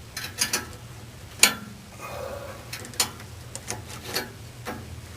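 Metal hemostat clicking and scraping inside a wall outlet opening as dry bird bones and feathers are pulled out: a string of sharp, irregular clicks, the loudest about a second and a half in.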